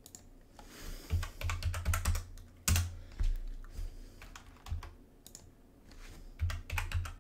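Typing on a computer keyboard in bursts of quick keystrokes, each key with a dull knock underneath. The busiest runs come from about a second in to three seconds, and again near the end.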